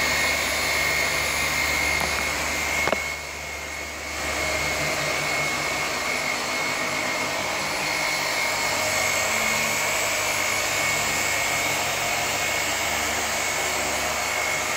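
Griot's Garage BOSS electric random-orbital polisher running steadily with a high whine, buffing compound into oxidized fiberglass gel coat. It goes briefly quieter about three seconds in.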